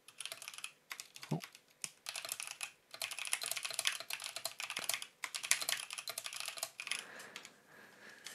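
Typing on a computer keyboard: quick runs of keystrokes with short pauses between them, thinning out near the end.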